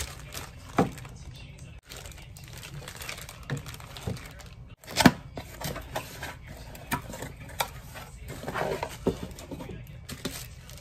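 Plastic packaging bags crinkling and a cardboard box rustling as a hand blender and its attachments are unpacked, with sharp knocks as parts are set down on a wooden counter; the loudest knock comes about five seconds in.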